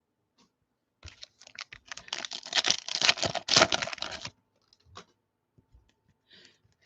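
Football trading cards being slid and flicked through a stack in the hand: a dense run of rapid clicking and rustling lasting about three seconds, then a few single clicks.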